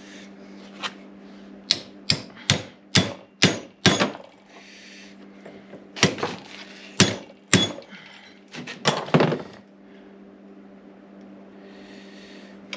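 Hammer striking a car door hinge and its pin: a quick run of about seven sharp blows, then a few more spaced out. A steady low hum runs underneath.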